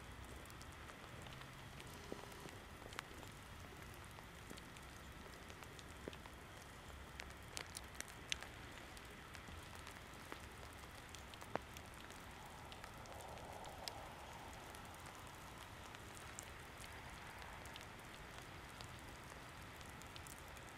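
Quiet snowy outdoor air: a faint steady hiss with scattered soft ticks and patters.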